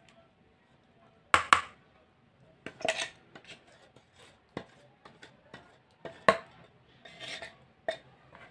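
Mixer-grinder jar knocking and scraping against a plastic mixing bowl while thick dosa batter is emptied out of it. There are a handful of sharp knocks and clinks, and the loudest is a quick pair about one and a half seconds in.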